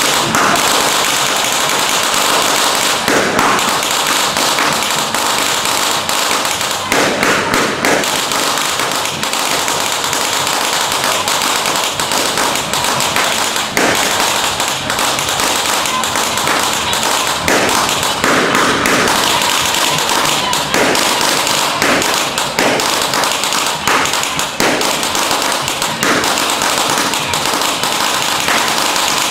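Strings of firecrackers going off in a dense, continuous crackle, with heavier bangs every few seconds.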